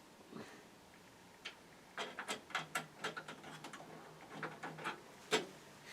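Small screws clicking and tapping against the metal of a PC case and drive bay as they are started by hand: a quick, irregular run of sharp clicks with one louder knock near the end.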